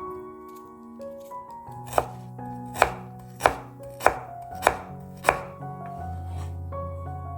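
Knife chopping on a cutting board: six sharp strokes about half a second apart, over soft piano music.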